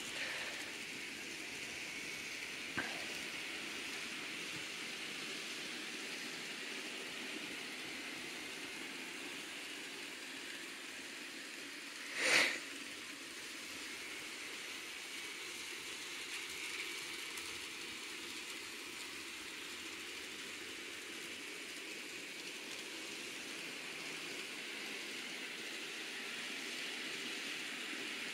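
N scale model train running on sectional track: a steady faint whirring hiss from the small motor and wheels on the rails. There is a single small click about three seconds in and a brief louder rush of noise about twelve seconds in.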